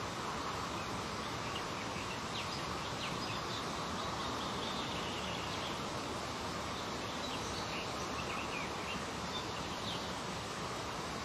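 Steady background hiss with faint, scattered short high chirps.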